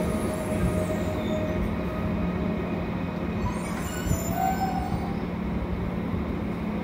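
A train running past: a steady rumble of wheels and running gear on the rails, with a whine that fades out about two seconds in and a brief faint squeal about four seconds in.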